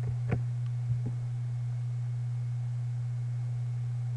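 Steady low hum, with a few short clicks in the first second.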